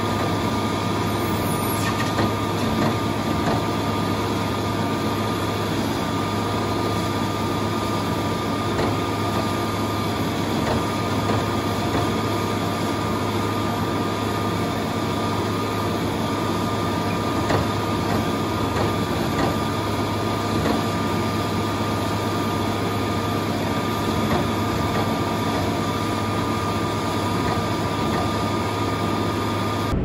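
Engine running at a steady speed: an unchanging hum with a constant high whine over it.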